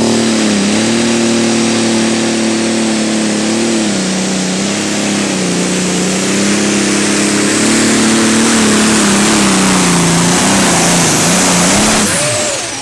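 John Deere 4455 pro farm pulling tractor's diesel engine running flat out under load, with a high turbocharger whistle over it; its note sags and recovers several times. About 12 seconds in the driver lets off, and the engine note and whistle wind down.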